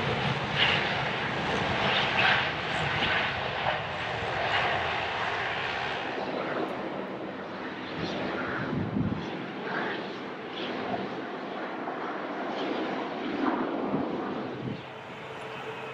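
Jet engines of a Boeing 787 at take-off power, a steady roar that slowly fades as it climbs away, giving way to the quieter running of an Airbus A330-300's engines as it taxis.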